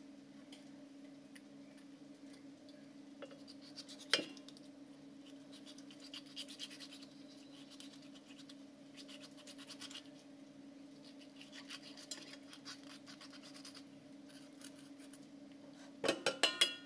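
Fingers rubbing and scraping the wet skin of a silver pomfret, heard as scattered short scratchy rasps. There is a sharp click about four seconds in, and a quick run of loud clicks near the end.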